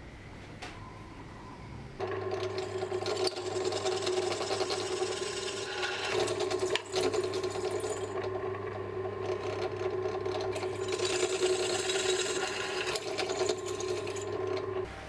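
Bench drill press running, its motor giving a steady hum while the twist bit scrapes through a small metal bracket clamped in locking pliers. It starts suddenly about two seconds in and stops just before the end.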